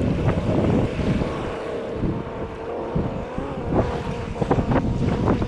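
Kawasaki 650SX jet ski's two-stroke engine running steadily in the water at its first start after a rebuild, with wind buffeting the microphone.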